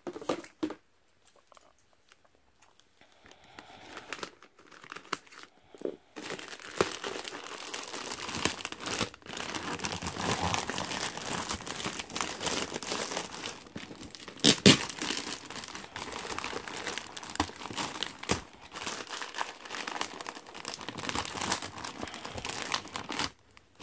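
Box packaging being picked at and torn open by hand, crinkling and rustling continuously after a quiet start of a few seconds, with one sharp snap about midway.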